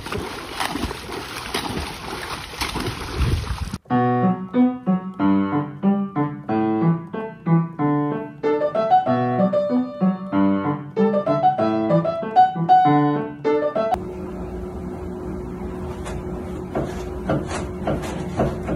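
Water splashing for the first few seconds, then piano music playing a simple melody. Near the end this gives way to a steady tone with scattered clicks.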